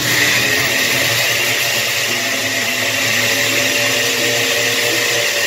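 Countertop blender starting up and running steadily at high speed, puréeing cilantro and spinach with a little water.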